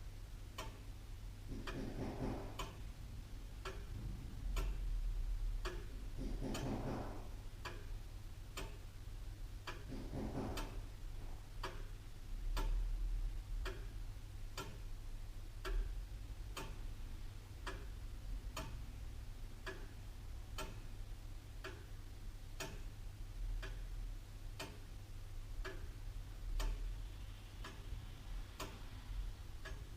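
Antique William Holliwell, Liverpool clock ticking steadily in evenly spaced ticks, over a low steady hum.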